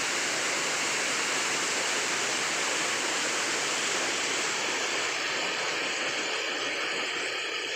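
Rushing water, a steady even rush without a break; the highest hiss thins out a little about five seconds in.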